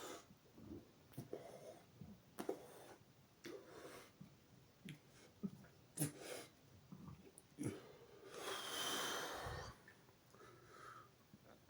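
A man breathing and taking in air in a string of short, separate breaths as he works up a deliberate burp. About eight seconds in comes one longer, louder breathy sound lasting about a second and a half.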